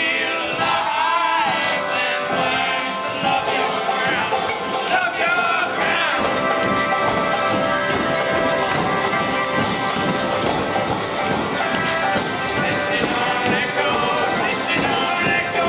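Live acoustic folk band playing: accordion, acoustic guitar, banjo and upright bass, with voices singing over the first few seconds before the instruments carry on alone.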